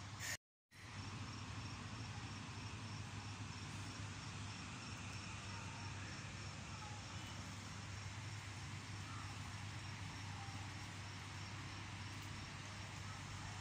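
Steady outdoor background noise with a faint, even chirping of insects, cut to silence for a moment about half a second in.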